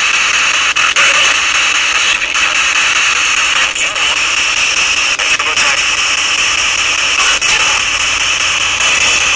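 Ghost box, a handheld radio scanning through stations, putting out loud, steady static hiss with brief breaks every second or two as it jumps between frequencies.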